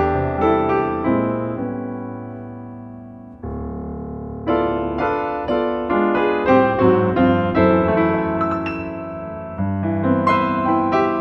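Background piano music: single struck notes over chords, easing into held, fading chords about two seconds in before the melody picks up again about four and a half seconds in.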